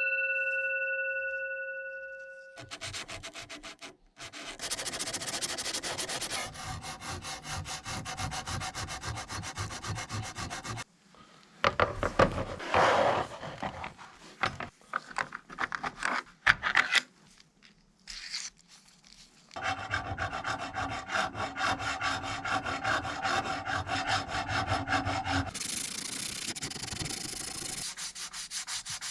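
A ringing tone fades away over the first two seconds or so. It is followed by sandpaper rubbing back and forth in quick, even strokes on a small diecast metal model car body. The strokes are patchier and louder for a stretch in the middle.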